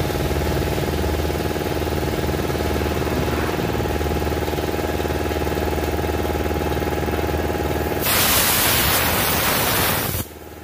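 Tyre being inflated through an air-inflator hose on the valve, over a steady mechanical hum. About eight seconds in, a loud hiss of compressed air lasts about two seconds and cuts off suddenly.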